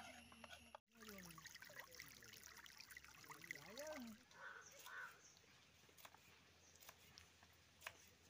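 Faint knife taps on a wooden chopping board as green beans are sliced, with a crow cawing a couple of times in the background around the middle.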